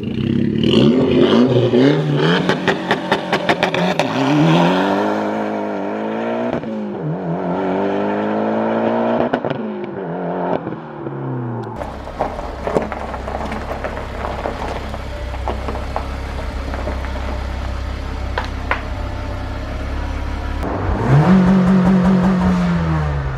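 Mitsubishi Lancer Evolution X's turbocharged four-cylinder through a Borla cat-back exhaust, revving up and down several times, then settling into a low, steady idle before one more rev near the end.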